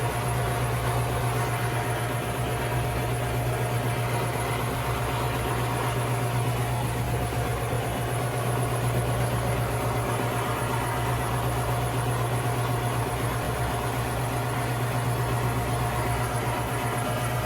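Handheld fuel torch flame burning steadily with a low, even roar, used to scorch the surface of white cedar.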